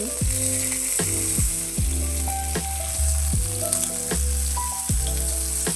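Filet mignon steaks sizzling steadily in hot oil in a frying pan as they are turned with tongs, with background music carrying a steady beat.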